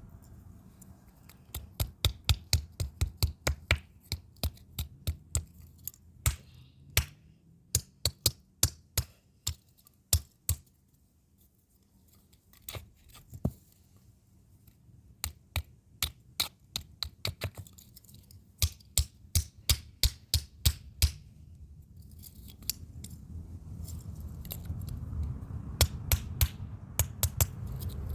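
Rapid sharp knocks and cracks from an RFID lock keypad being broken apart, coming in runs of about three a second with pauses between them.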